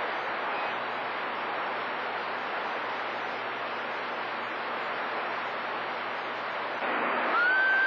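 CB radio receiver on channel 28 giving a steady hiss of static on an open channel. Near the end a signal comes in: the hiss gets louder, and a short tone rises, holds and drops.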